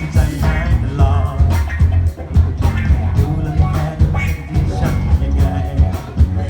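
A band playing a pop-rock song: drums keep a steady beat under a heavy bass, with a wavering melody line over the top.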